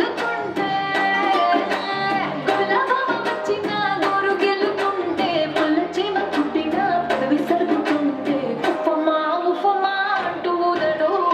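Recorded Telugu song from a dance medley played over the hall's sound system: a singing voice over a steady drum beat. The bass drops out for about a second near the end.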